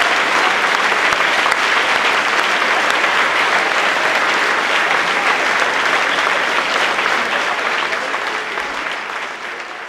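Large audience applauding, a dense, steady patter of many hands clapping that fades away near the end.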